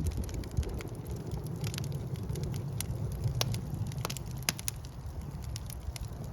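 Wood fire burning in a fireplace: a steady low rumble of flames with sharp, irregular crackles and pops from the logs, a few louder pops in the middle.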